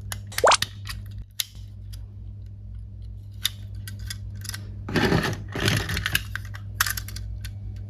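Toy vehicles being unboxed by hand: sharp plastic clicks and taps, a quick swish about half a second in, and a spell of rustling, crinkling packaging about five seconds in, over a steady low hum.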